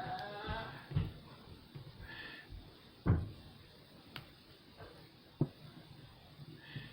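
A few soft knocks and clicks of a plastic action figure and its weapon being handled and posed, with a brief faint hum of a voice at the start.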